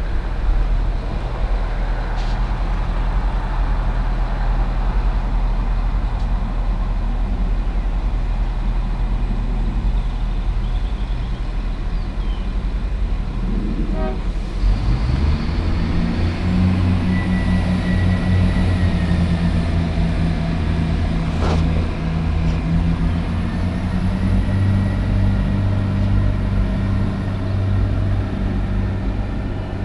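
Diesel railcar engines running steadily at a low drone, then revving up about halfway through and holding at a higher steady note, with a faint high whine over it.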